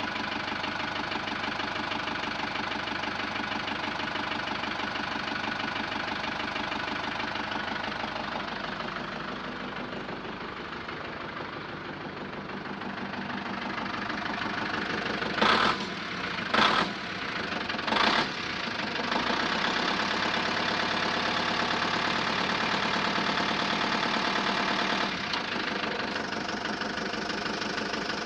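Heavy truck diesel engine running steadily, a recorded engine sound rather than the toy itself, dipping a little and then running louder in the second half. Three short, loud sounds about a second apart come just past the middle.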